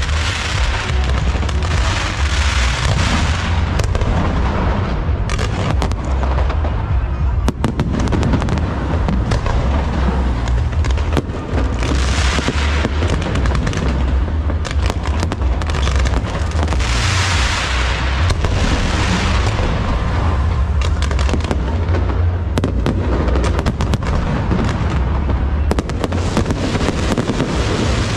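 Aerial fireworks display in a dense, continuous barrage: deep booms of shell bursts overlapping with sharp reports and crackle. The crackle swells louder several times, around 12 and 18 seconds in.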